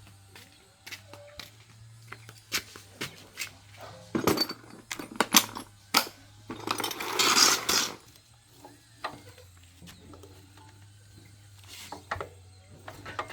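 Metal tools and engine parts clinking and knocking during hands-on work on a diesel engine, a scattering of sharp taps, with a louder rasping noise lasting about a second and a half around the middle.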